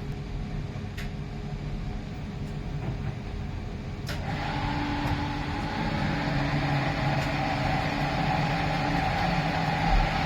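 2011 Miele PW 6080 commercial washing machine running with a steady hum. About four seconds in, after a click, a steady whine and a louder rushing sound set in and hold to the end.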